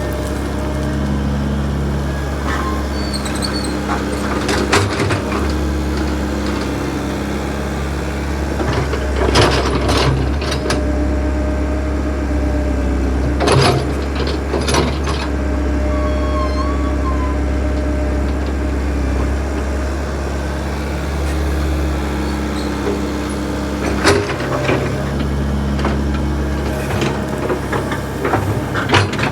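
Backhoe's diesel engine running steadily, its note shifting a few times as load changes, with several sharp knocks and clanks from the machine working.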